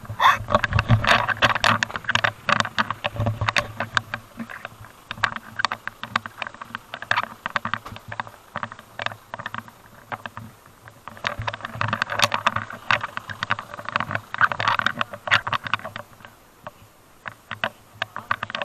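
Handling noise close to a camera microphone: rapid clicks, rattles and fabric rustling. It comes in two busy stretches, one at the start and one in the second half, over a faint low hum.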